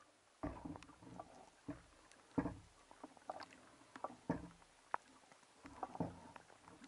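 Water splashing and sloshing around a speargun-mounted camera as a spearfisher dives from the surface. The sound comes as a string of irregular splashes and knocks every second or two.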